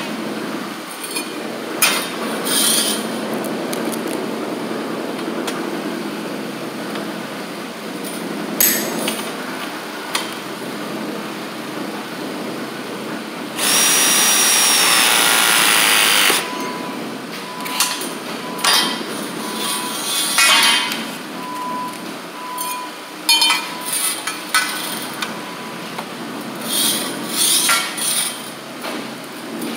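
Ridgid RP 340 battery press tool running one press cycle on a copper ProPress fitting for about three seconds around the middle, a steady motor run with a gliding whine. Before and after it, copper pipe and fittings clank and knock sharply as they are handled and set into the press jaws.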